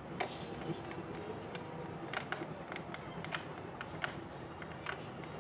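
A screwdriver turning a screw into the plastic housing of a small sewing machine: a string of light, irregular clicks and ticks, about a dozen.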